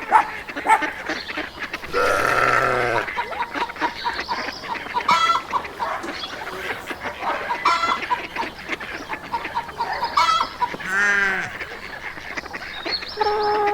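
Farmyard animals calling: frequent short poultry-like calls throughout, with two longer, deeper animal calls, one about two seconds in and another about eleven seconds in.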